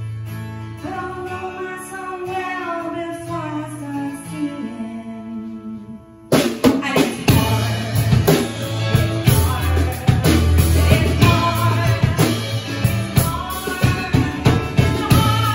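Live rock band playing: drum kit, electric bass, acoustic guitar and keyboard, with a woman singing. For the first six seconds it is a quieter stretch of held chords under a sung line. Then the full band with drums crashes back in at about six seconds and plays on, the voice returning near the end.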